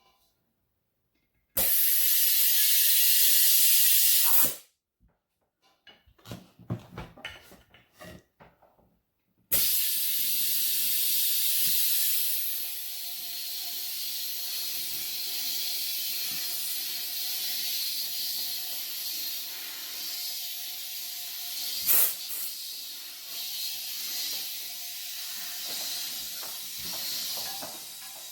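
Compressed air hissing from an air chuck into a tire whose beads are not yet seated. A short loud blast comes first, then a few seconds of clicks and knocks as the chuck is handled, then a long steady hiss of air with a sharp click about two-thirds of the way through. The hiss ends as the tire starts holding air.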